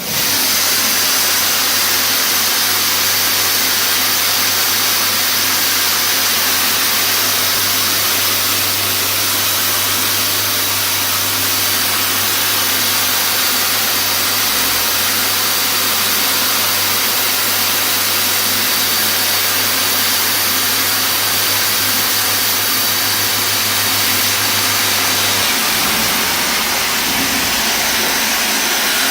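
CNC machine thread-milling titanium alloy with an ultrasonic-assisted tool: a steady loud hiss with a low hum underneath, the hum stopping near the end.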